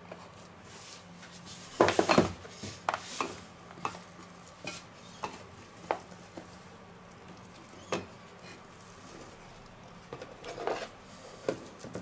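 Knocking and clattering of a plastic food container being handled as sticky pizza dough is worked out of it: a quick burst of clatter about two seconds in, then scattered single knocks and another short flurry near the end.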